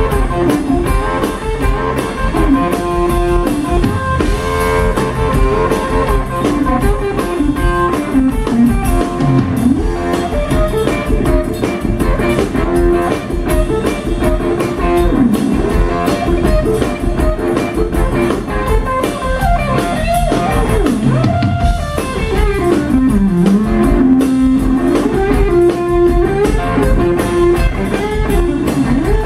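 Live blues band playing an instrumental passage: electric guitar leading with bent notes over electric bass and a drum kit.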